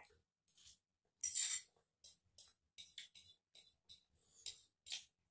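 Quiet eating sounds: a fork clinking and scraping on a plate of collard greens, with chewing, heard as a scatter of short, sharp clicks and one longer scrape about a second in.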